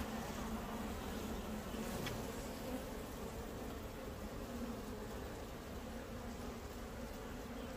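Asian honey bees (Apis cerana) buzzing steadily, a colony swarming over the combs of an opened wooden hive box.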